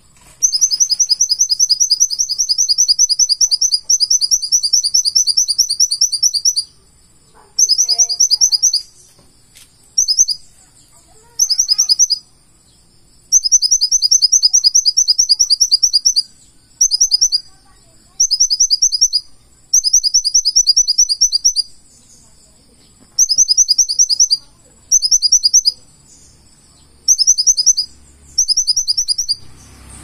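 Purple-throated sunbird singing. Its song comes in loud bursts of very high, rapid ticking trills, each lasting about one to three seconds, repeated again and again with short pauses between them.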